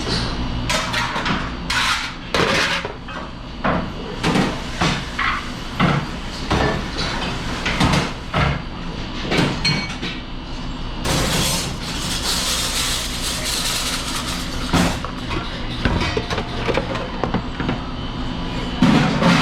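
Dishes, cups and silverware clattering and knocking as they are handled at a restaurant dishwashing station, over a steady machine hum. About eleven seconds in, a hiss of spraying water runs for several seconds before the clatter resumes.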